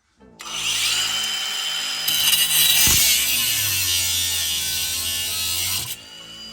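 Angle grinder cutting a vehicle-floor bracket. The motor whines steadily under a harsh cutting noise that gets louder about two seconds in. Near the end the cut stops and the grinder winds down, its whine falling in pitch.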